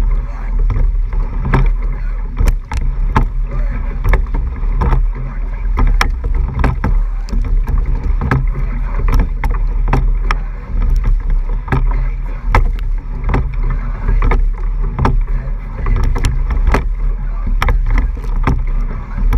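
Racing eight rowed hard, heard from the hull: a steady low rumble of water and air on the microphone with a rushing haze of water over it, cut through a few times a second by sharp clacks of the oars working in their oarlocks.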